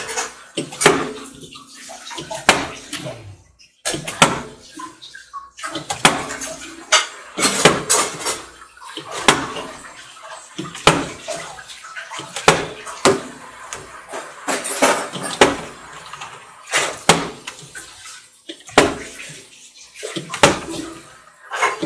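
Plastic puzzle cubes being handled and stacked on one another: repeated light clacks and knocks of cube on cube, roughly one a second, with rustling between.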